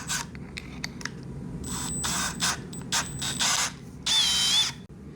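Power drill running in short bursts while drilling a hole, with a brief higher whining run about four seconds in whose pitch dips under load. A few sharp clicks come near the start.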